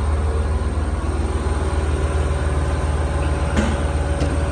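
Engine idling steadily with a low, fast, even beat, and a couple of short clicks about three and a half seconds in.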